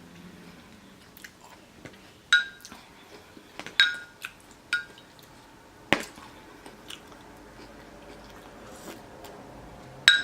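Eating at close range: chewing, with a metal utensil clinking against a dish several times, each clink ringing briefly, and a sharper click about six seconds in.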